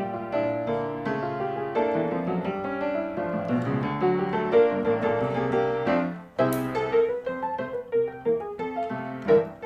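Background piano music with a steady run of notes; about six seconds in it dips briefly and a short high hiss sounds.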